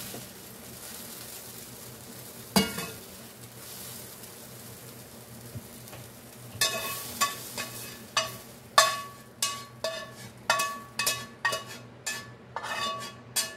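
Faint sizzle from a hot cast iron skillet, then, from about halfway, a run of about a dozen sharp ringing clinks, roughly two a second, as a utensil knocks and scrapes cooked bell pepper strips out of the skillet.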